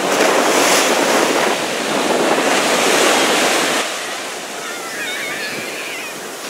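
Ocean surf breaking and washing up the sand, with wind buffeting the microphone. About four seconds in the rush becomes quieter, and faint distant voices of people in the water carry over the surf.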